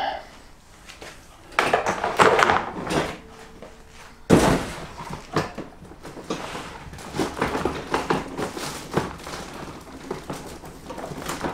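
Handling noise from a bundle of red water hoses with plastic fittings being put down and a plastic tub being moved: rustling and knocking, with a sharp thump about four seconds in and small clicks after it.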